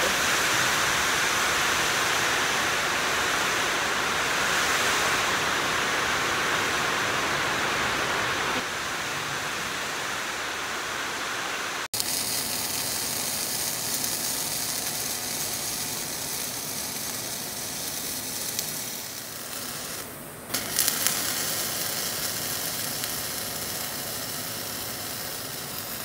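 MIG welding arc crackling and hissing steadily as a bead is run along the seam of a new steel wear skin on a compactor blade. The arc stops for a moment about two-thirds of the way through and then starts again. A louder, even hiss comes first, for about twelve seconds.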